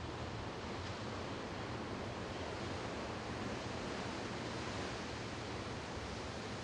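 Steady rushing noise over a low, even drone, the sort picked up aboard a hovering helicopter.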